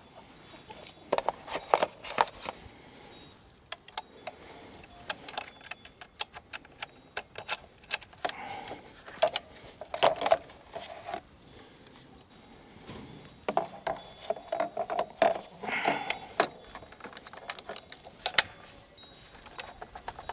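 Keys jangling with a series of sharp clicks, knocks and rattles as an electric bike's battery is unlocked with its key, pulled out and clicked back into its mount, to reset a drive system that had stopped giving power.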